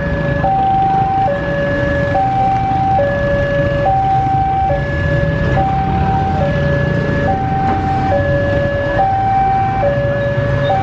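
Railway level crossing warning alarm sounding its electronic two-tone signal, a higher and a lower tone alternating evenly, about one high-low pair every 1.7 seconds. Road traffic rumbles past underneath.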